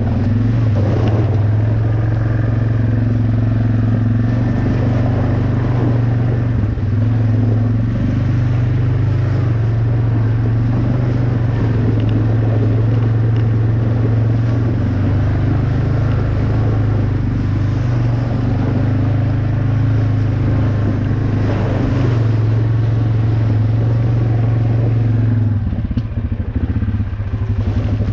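Off-road vehicle engine running steadily under light throttle on a trail, then easing off to a lower, pulsing run near the end.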